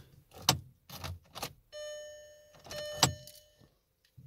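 Ignition key clicking as it is turned in the lock of a 2004 Skoda Octavia, then two electronic warning chimes, about a second apart, each fading away, with another click over the second. The engine does not crank or start: the newly programmed key is not accepted.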